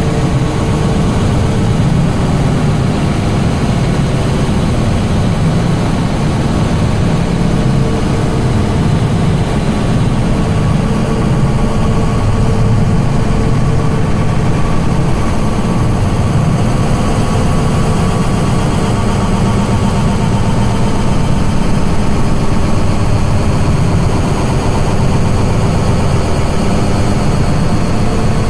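Experimental noise music: a loud, steady, distorted drone heavy in the low end, with a few faint held tones above it and no beat.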